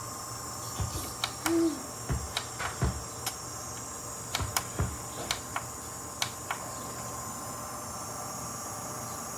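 Small personal air cooler's fan running with a steady hum, while a series of sharp clicks and a few dull knocks come irregularly over the first six or so seconds, then stop.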